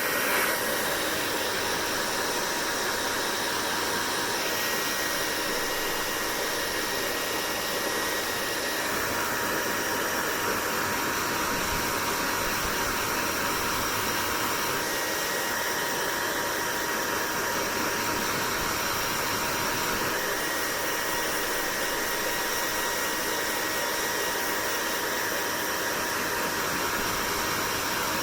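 Hair dryer running steadily: a constant rushing of air with a faint steady whine from its motor and fan, the air sound shifting slightly in tone every several seconds.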